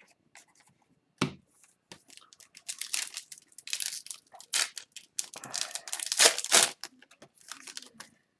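Hockey card pack's foil wrapper being torn open and crinkled by hand: a knock about a second in, then a few seconds of crackling and tearing.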